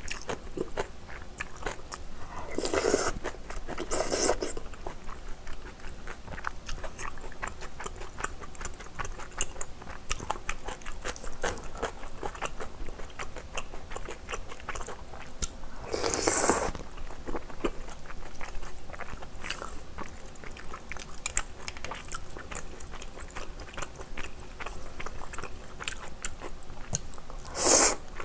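Close-miked eating of spicy instant ramen: steady chewing and crunching with many small wet mouth clicks. Loud noodle slurps come about three and four seconds in, again around sixteen seconds, and just before the end.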